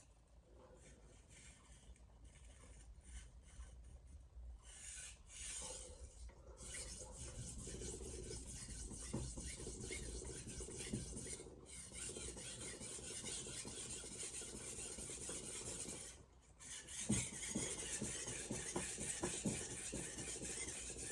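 Steel knife blade being stroked back and forth across a Shapton Glass whetstone: a gritty scraping hiss. It is sparse and intermittent for the first few seconds, then runs steadily with one short pause about sixteen seconds in.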